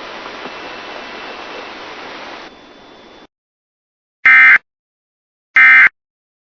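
Radio static hiss for about three seconds, cutting off to silence, then two short, loud, identical bursts of warbling digital data tone about a second and a half apart: the Emergency Alert System's SAME End-of-Message signal closing the alert.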